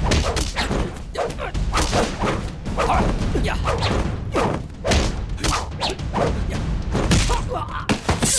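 Staged fight sound effects in a martial-arts scene: a quick run of punches, thuds and swishing blows, about two a second.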